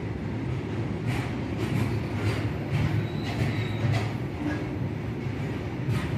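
Freight train rolling slowly past with a steady low rumble, its wheels clacking irregularly over rail joints, and a faint brief wheel squeal about midway.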